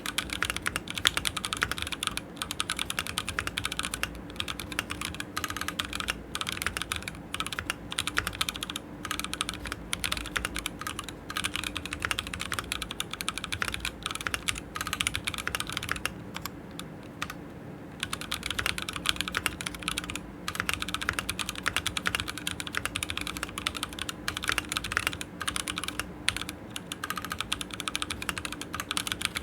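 Fast continuous typing on a Keychron Q6 full-size aluminium mechanical keyboard with Gazzew Boba U4T tactile switches: a dense stream of keystrokes with a short pause a little past the middle.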